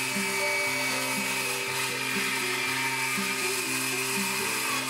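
A power tool running with a high-pitched whir that cuts off at the very end, over background music with a steady beat.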